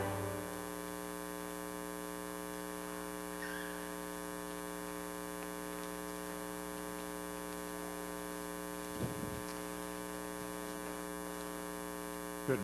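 Steady electrical mains hum with its buzzing overtones, with the tail of music dying away at the start. A brief low bump comes about nine seconds in.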